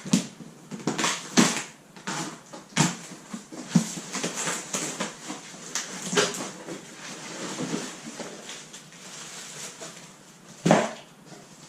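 A cardboard shipping box being opened and unpacked: irregular rustling, scraping and tearing of packaging, with scattered knocks and one sharp thud about three-quarters of the way through.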